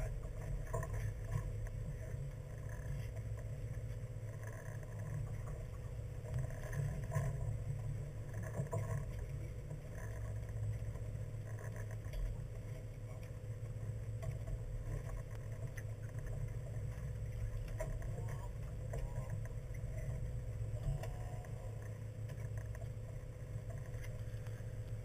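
Fishing boat's engine running steadily: a low drone with a steady hum above it.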